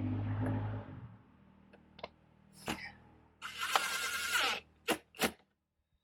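Cordless impact driver running a screw into the latch, cutting off about a second in. Then scattered sharp clicks of the screws and latch being handled, a short noisy burst just after the middle, and two sharp clicks near the end.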